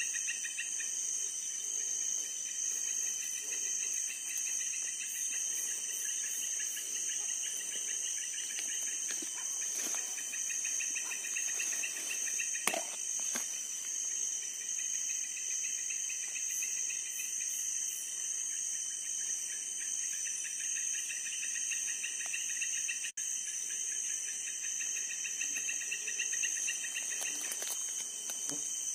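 Night insect chorus: a steady high-pitched buzz with fast pulsing chirps beneath it. A single sharp knock about thirteen seconds in.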